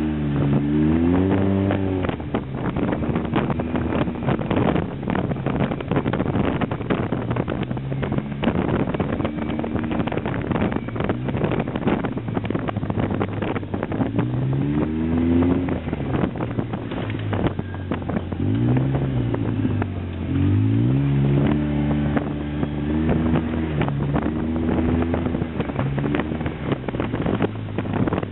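Polaris RZR 800 side-by-side's twin-cylinder engine revving up and down as it is driven fast over a rough dirt track, with the pitch climbing and dropping several times. A constant clatter of knocks and rattles from the jolting ride runs underneath, with some wind on the microphone.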